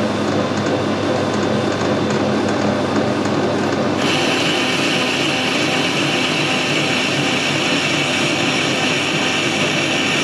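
Metal lathe running steadily. About four seconds in a steady high-pitched hiss joins it, and it stops near the end.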